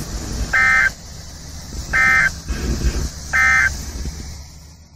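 NOAA Weather Radio end-of-message signal: three short, harsh, buzzy data bursts about a second and a half apart. These are the SAME code tones that close a broadcast warning. They play over a steady hiss and low rumble, which fade out near the end.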